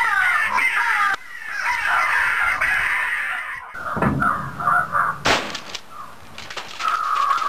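Crows cawing, many voices at once and thinning out after about a second; short caws return around four seconds in, with a single sharp crack just after five seconds.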